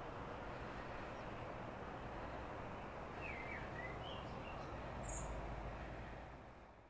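Outdoor lakeside ambience: a faint, steady background hiss with a few short bird chirps about three to four seconds in, fading out near the end.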